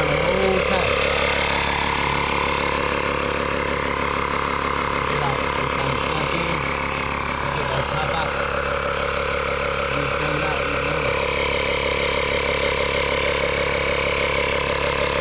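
Air compressor motor running with a steady hum while filling a freshly mounted dirt bike tire with air.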